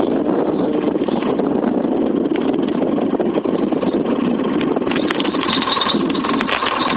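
A boat's outboard motor running steadily at idle. In the last two seconds a spinning reel is cranked over it, adding a busier rattle.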